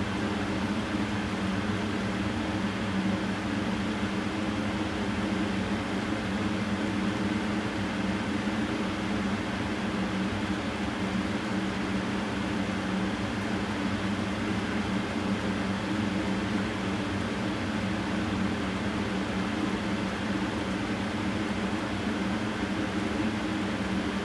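Steady mechanical hum and whir, a low multi-pitched drone over an even hiss, unchanging throughout.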